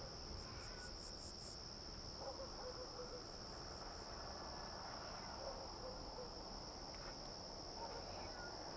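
Crickets trilling steadily in one continuous high tone, with a faster pulsing chirp at a higher pitch for the first second and a half.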